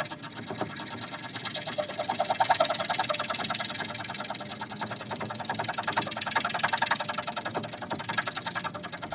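Spine of a Swiss Army knife saw blade scraping fatwood in rapid, rhythmic strokes.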